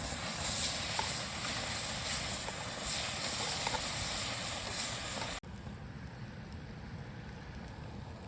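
Deer bratwursts sizzling as they cook: a steady hiss with small pops. About five seconds in it drops abruptly to a quieter hiss.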